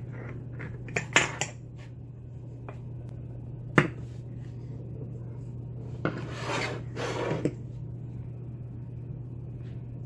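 Metal clicks and clinks of a brass Falcon mortise lock cylinder being handled, taken out of a vise and set down on a wooden desk. A few clicks come about a second in, a sharp knock a little before four seconds, and a scraping rub around six to seven seconds.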